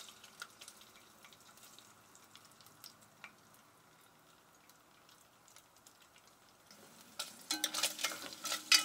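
Bacon pieces frying in hot avocado oil in an enameled pot, a faint sizzle with small crackling ticks. Near the end a spoon stirs and scrapes the pieces around the pot, adding louder clicks.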